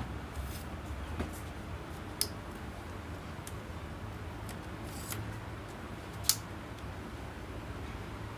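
Sharp plastic clicks and light rattles from a lightweight aluminium tripod's leg-lock clips and tubes as they are handled and adjusted: a few separate clicks, the loudest about six seconds in, over a low steady hum.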